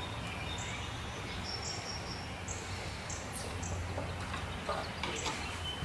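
Quiet background ambience with a steady low hum and scattered short high chirps, plus a few light clicks about four to five seconds in from a screwdriver working on the mower's carburetor screws.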